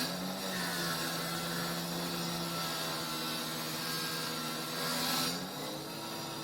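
A motor running with a steady hum, its pitch stepping up about five seconds in.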